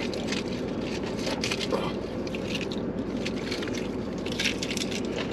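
Eating sounds inside a car: a plastic fork scraping in a cardboard takeout box and paper food wrappers rustling, heard as short scrapes and rustles every second or so over a steady low cabin hum.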